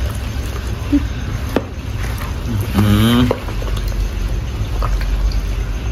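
Hands squeezing and kneading raw chicken pieces in marinade in a mortar bucket: wet squelching with a few sharp clicks, over a steady low hum. A brief voice is heard about three seconds in.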